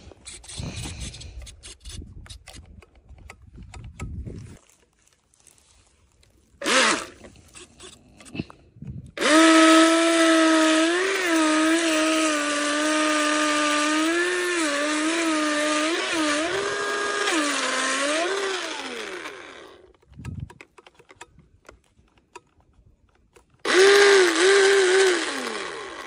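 Electric motor and propeller of a toy RC speedboat whining under throttle while held out of open water, the pitch stepping up and down as the throttle is blipped, then winding down. A shorter burst of the same whine comes near the end and also dies away.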